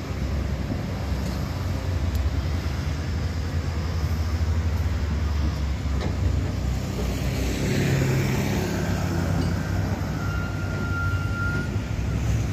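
Laden diesel dump truck driving slowly along a dirt track, its engine a steady low rumble that thickens about eight seconds in. A thin high whistle sounds briefly near the end.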